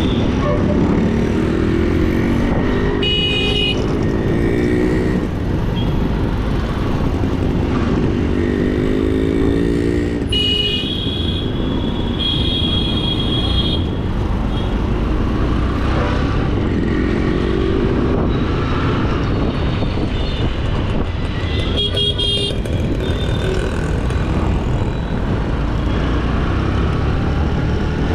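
Road traffic heard on the move: a steady low rumble of engine and road noise, with an engine climbing in pitch three times as it accelerates. Vehicle horns honk four times.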